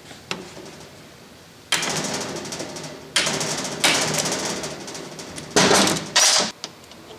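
Hammer blows on a hand impact driver seated in slotted cap screws, tightening the screws that hold a lathe apron to its saddle. There are five sharp strikes, the first about two seconds in, and each one trails off.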